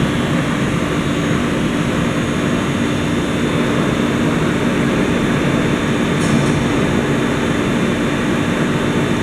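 Wotan Rapid 5 CNC floor boring machine running under power: a steady mechanical hum and rushing whir with a few constant low tones, unchanging in level.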